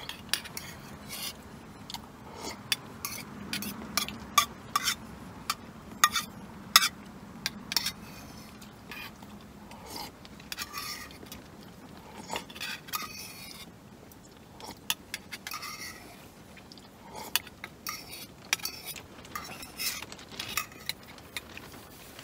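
A utensil clinking and scraping against a small camping pot while food is scooped out and eaten. It makes irregular sharp clicks, thickest in the first eight seconds and sparser after.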